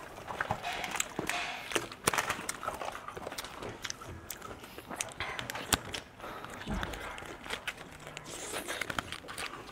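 A small plastic packet of spicy konjac strips crinkling and clicking as it is torn open and squeezed at the mouth, with the konjac being bitten and chewed.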